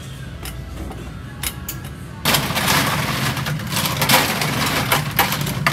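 A few light clicks of kitchenware, then about two seconds in water starts running and splashing hard into a kitchen sink.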